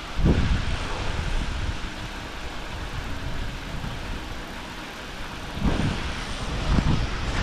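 Wind buffeting the microphone: a low, uneven rumble that gusts up about a third of a second in and again near the end.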